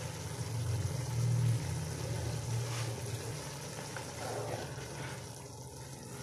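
Steady low rumble with a watery hiss from a large pot of rice cooking on the stove, its water almost boiled off so the rice has come up to the surface.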